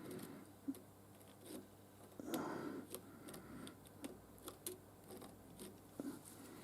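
Faint scattered clicks and light handling noises from the workpiece and tools at the milling machine, with a soft scuffing rustle about two and a half seconds in.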